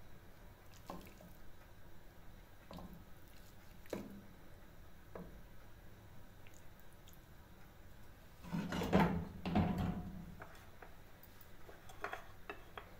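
Wooden spatula scraping and tapping soft potato-and-cauliflower curry against a glass plate in scattered light knocks, with a louder run of scrapes about eight and a half seconds in. A few small clicks near the end from a plastic box being handled.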